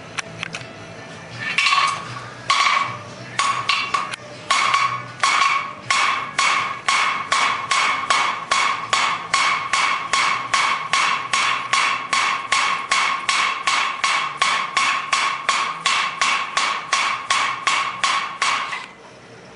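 Hand hammer striking a piece of steel on an anvil, each blow ringing: a few slow, uneven blows, then steady fast hammering at about three blows a second that stops abruptly near the end. The metal is being hammered cold until it is hot enough to light a cigarette.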